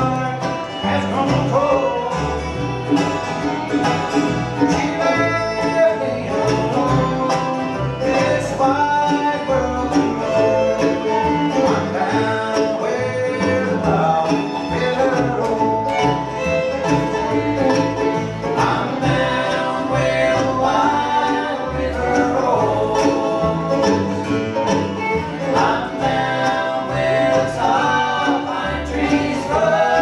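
Bluegrass band playing live: picked five-string banjo and acoustic guitar over upright bass, with fiddle, and a voice singing.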